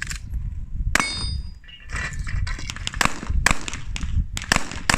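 Pistol shots fired in a string, coming faster in the second half, with steel targets clanging and ringing briefly when hit.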